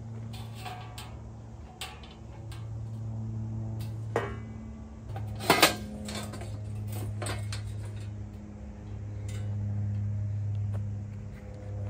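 Metal plates of a folding fire bowl clanking and scraping as they are unfolded and set down, with several separate clanks, the loudest about halfway through. A steady low hum runs underneath.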